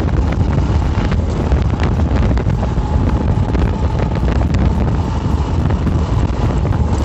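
Motorcycle running steadily, with a heavy low rumble of wind buffeting the microphone and faint regular ticks over it.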